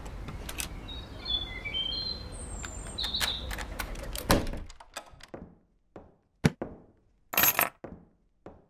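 Outdoor street ambience with birds chirping, cut off by a single loud thud about four seconds in. Then a quiet room holds scattered light knocks and a short scraping rustle near the end.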